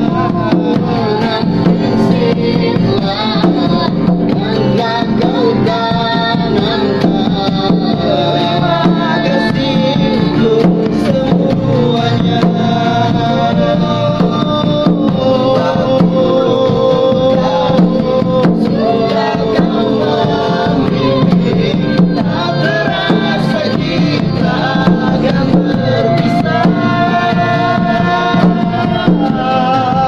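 Acoustic folk-style band music: a hand drum keeps the beat under acoustic guitar, with a melody line carried over the top.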